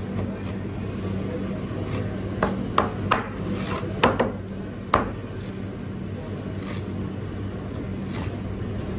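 A large knife chopping fish into cubes on a cutting board: about five sharp knocks of the blade hitting the board, bunched around the middle, over a steady low hum.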